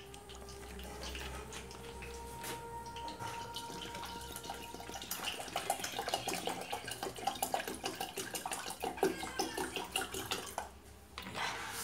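Water pouring steadily into a pot of cooked lentil dal for about five seconds, followed by a run of quick, irregular clicks and knocks.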